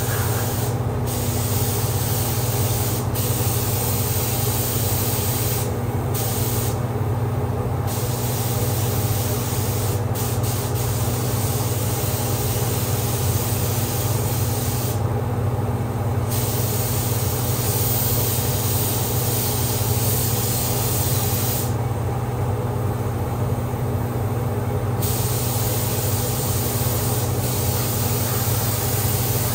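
Compressed-air paint spray gun hissing as it sprays, the hiss breaking off briefly several times when the trigger is released, once for about three seconds. Underneath is the steady hum of the paint booth's exhaust fan.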